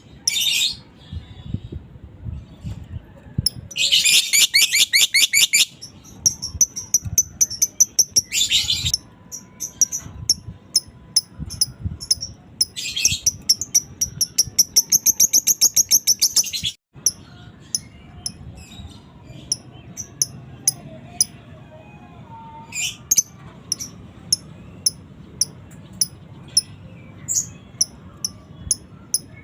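A worked-up fighter lovebird chattering: long, fast rattling trills (the 'ngekek'), the longest running about four seconds near the middle, with sharp single chirps between them. After a brief break past the middle, only scattered short chirps.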